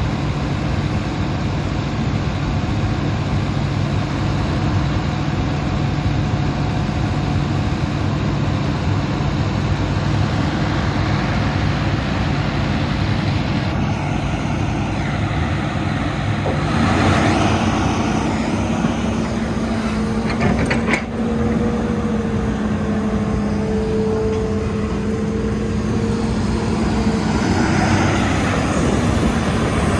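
Hitachi Zaxis hydraulic excavator's diesel engine running under throttle with a steady buzzing hum. A little over halfway through, the sound shifts to a louder, higher steady drone, and a brief clatter and dip follow a few seconds later.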